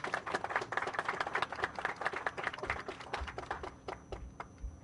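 A small group of people applauding, dense hand claps that thin out and die away near the end.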